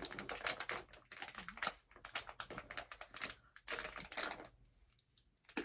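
A plastic snack packet crinkling and crackling in irregular bursts as hands twist and tug at it, struggling to tear it open. It stops for about a second near the end, then crinkles again.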